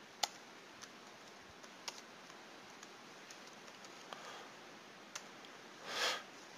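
Computer keyboard keystrokes, sparse and faint, as text is typed, over a low steady hiss. A short soft rush of noise comes about six seconds in.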